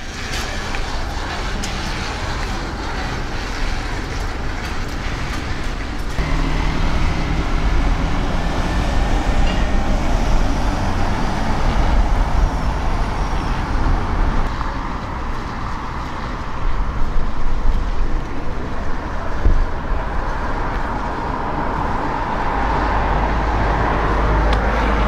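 Chairlift running during a ride up the line: a steady rumbling mechanical noise that grows louder near the end.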